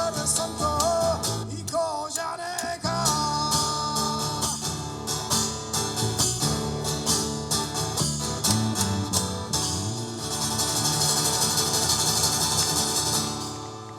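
A song sung to a strummed Gibson J-200 acoustic guitar. A bending vocal line over steady chords opens it, then the strumming carries on, with a bright high hiss over the last few seconds as the music fades out near the end.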